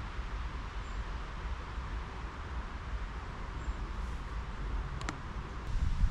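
Steady outdoor noise: a low rumble of wind buffeting the microphone over a hiss of flowing river water. There is one sharp click about five seconds in, and a louder gust of rumble near the end.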